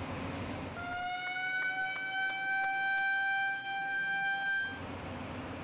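A warning horn sounds for about four seconds, one high steady tone that rises slightly in pitch, over a steady background rush.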